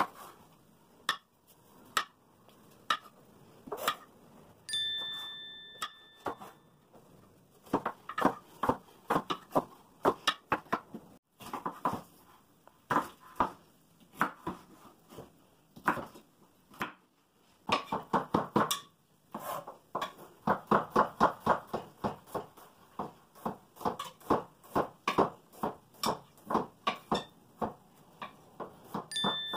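Kitchen knives chopping bell pepper, garlic and mushrooms on cutting boards: sharp taps, often in quick runs of several a second, with pauses between. A short ringing ding sounds twice, about five seconds in and again at the end.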